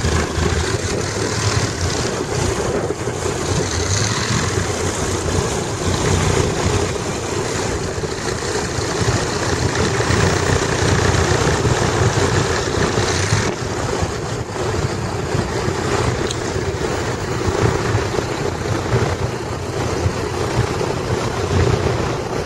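Flitzer biplane's engine and propeller running steadily at taxi power, a low even drone with small swells in level.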